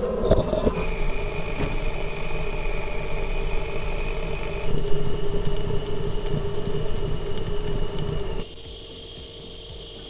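Wheel bearing heard through a mechanic's stethoscope pressed on the wheel hub while the wheel spins: a loud, steady hum with a high whine over it, the sound of a worn bearing. About 8.5 seconds in it drops suddenly much quieter as the probe moves to the transmission case.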